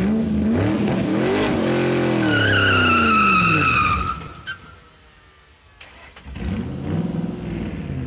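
Car engine revving up and falling away, with a tire squeal from about two to four seconds in. The sound dies down briefly, then the engine revs again in the last two seconds.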